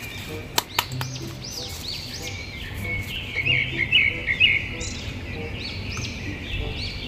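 Birds chirping over and over, with a busier, louder run of chirps about halfway through. Near the start come two sharp plastic clicks from a toy action figure being handled in its clear plastic tray.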